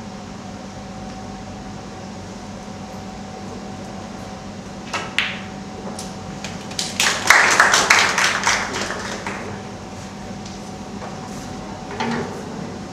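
A sharp click of snooker balls about five seconds in, then spectators clapping for about two seconds, the loudest sound, with another knock near the end. A steady hum runs underneath.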